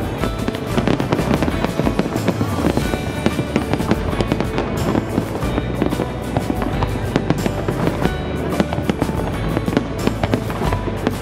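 Fireworks going off in rapid succession, dense overlapping bangs and crackles from a large aerial display, with music playing underneath.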